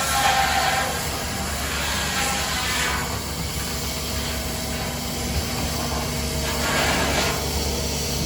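1912 Case 40 hp steam traction engine running under belt load, driving a sawmill: a steady low hum with hissing steam, heaviest for about the first three seconds and again for a second near the end.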